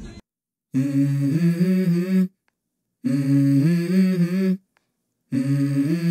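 A voice humming a short tune three times. Each phrase lasts about a second and a half, starts on a lower note and steps up to a higher one, and the phrases are separated by dead silence.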